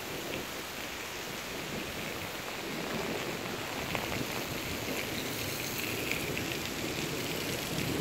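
Heavy rain falling steadily, growing a little louder about three seconds in.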